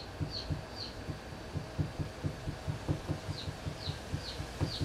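A steady low throbbing pulse, about four beats a second, with a bird singing runs of short, falling high chirps: one run at the start and another from about three seconds in.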